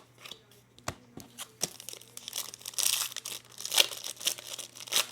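Crinkling and rustling of a trading-card pack wrapper as baseball cards are handled, with small sharp clicks of cards being flipped. The rustling is loudest in the middle.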